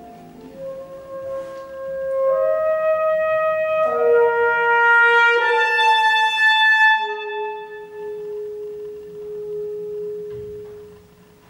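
Unaccompanied alto saxophone playing slow held notes that step upward in pitch and grow louder, then settling on one long, softer low note that fades out near the end.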